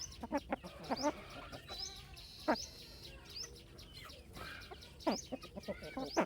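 Chickens calling, with a run of quick clucks and high chirps, irregular and overlapping, and a longer drawn-out call around the middle.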